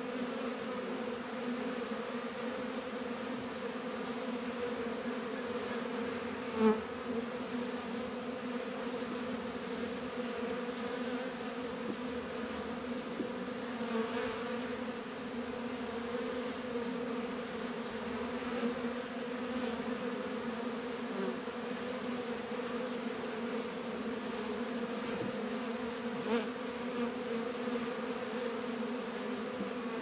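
Steady hum of many honey bees in flight around an opened hive. Two short knocks stand out, one about a quarter of the way in and another near the end.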